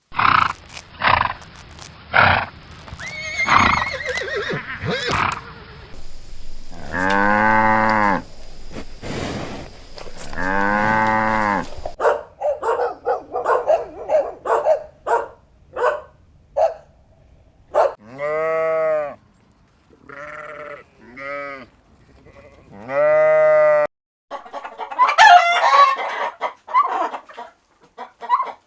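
Farm animals calling one after another, with several different kinds of call: long drawn-out calls of about a second and a half, shorter arched calls, and a burst of busy calling near the end.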